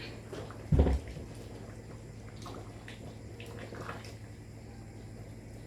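Chicken curry simmering in the pot, with scattered soft bubbling pops over a steady low hum. One loud, low thump comes a little under a second in.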